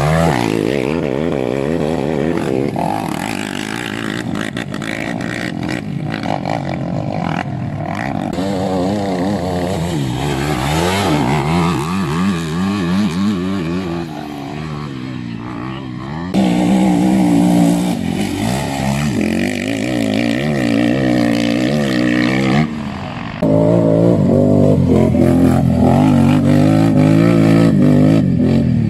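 Racing quad engines revving hard as the quads pass on a dirt motocross track, the pitch rising and falling with throttle and gear changes. The sound jumps suddenly louder twice, about halfway through and again a few seconds later.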